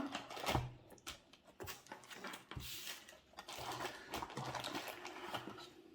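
Camera box packaging handled by hand: faint rustling of paper and cardboard with small taps and clicks, and a longer rustle in the middle as the contents are searched.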